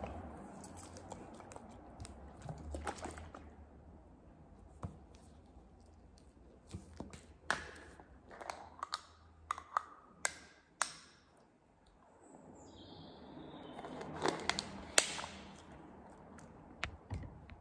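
Handling a bottle of juice: a run of sharp clicks over a few seconds as its screw cap is twisted open, with rustling before and after and a louder knock near the end.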